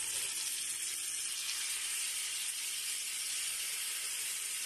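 Marinated chicken pieces sizzling steadily in hot olive oil on a ridged grill pan, with more pieces being laid into it.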